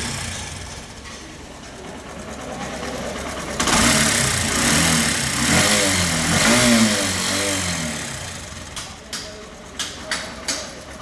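Honda SP 125 single-cylinder engine running, with the throttle blipped several times about four seconds in, then settling back toward idle with a few sharp clicks near the end. The engine is making a noise that the mechanic traces to the timing chain.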